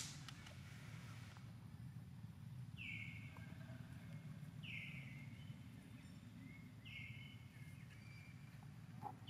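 A bird calling: a short high note that slides down and levels off, repeated four times about every two seconds, over a faint low steady rumble.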